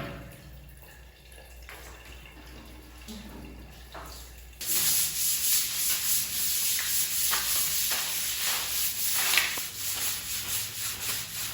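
Household cleaning noise: after a quieter stretch with a few faint knocks, a steady, rough hissing scrub starts suddenly about four and a half seconds in.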